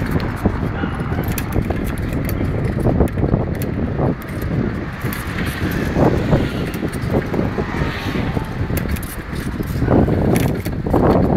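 Wind buffeting the microphone of a camera on a moving bicycle, rising and falling irregularly, with the bike rattling and clicking as it rolls over paving.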